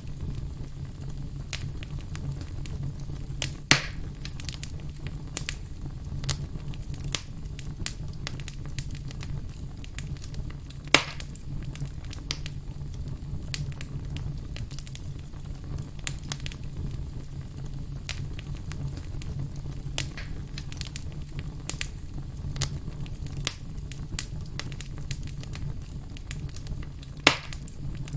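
Wood fire burning, with irregular small crackles over a steady low rumble and three sharper, louder pops of burning firewood.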